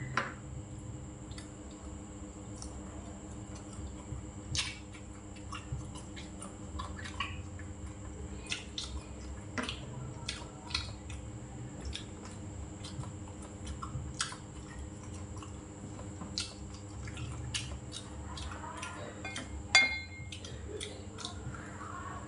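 A person eating with chopsticks: chewing and mouth sounds, with irregular light clicks of the chopsticks on ceramic bowls and plates. The loudest sound is a sharp clink with a brief ring about 20 seconds in.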